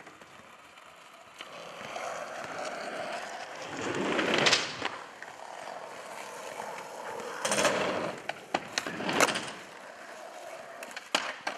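Skateboard wheels rolling over asphalt. Three loud sudden clacks of the board against the ground come at about 4.5, 7.5 and 9 seconds in, with lighter clicks near the end.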